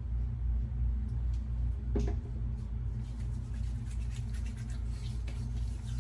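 Steady low hum, with a single soft click about two seconds in and faint scattered ticks and handling noises after that.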